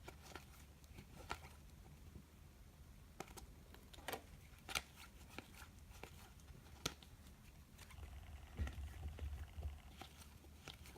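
Trading cards being handled and shuffled: faint scattered clicks and taps, with light rustling a little past two-thirds of the way through.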